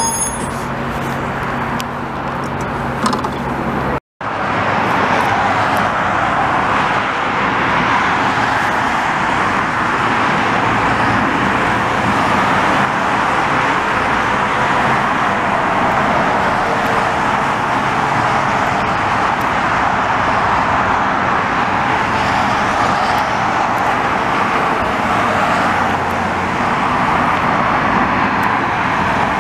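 For the first four seconds, bilevel commuter rail cars roll past with a steady rumble. After an abrupt cut, steady road traffic noise from a busy highway runs without a break.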